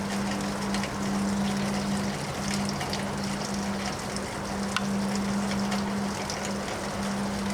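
Windstorm noise: a steady wash of wind with scattered light ticks, over a steady low hum.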